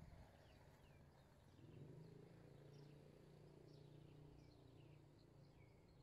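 Faint outdoor ambience: small birds giving scattered short, high chirps that slide downward, over a low steady hum.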